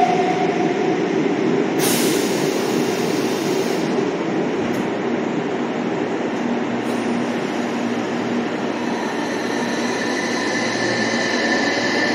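Nagoya Municipal Subway Tsurumai Line train running with a steady rumble. A short hiss comes about two seconds in, and near the end a motor whine starts to rise in pitch as the train picks up speed.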